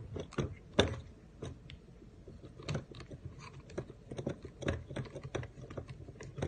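Handling noise from a Canon PowerShot G7X compact camera being fitted onto a tabletop tripod's mount: irregular clicks and knocks, with two sharper knocks in the first second.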